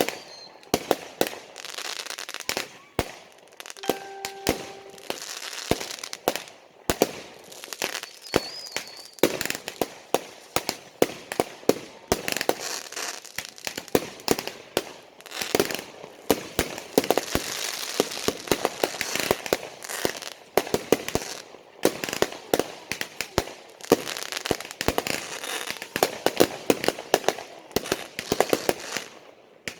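Fireworks going off: a dense, unbroken run of sharp bangs and crackles, many per second.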